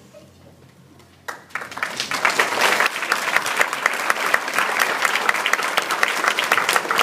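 Audience applauding. After a brief hush, the clapping breaks out a little over a second in, swells quickly and holds steady.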